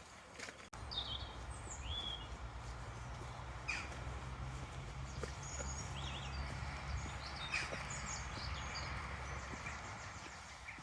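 Small birds chirping and calling repeatedly with short, quick notes over a low steady outdoor rumble that comes in about a second in, with a few faint clicks.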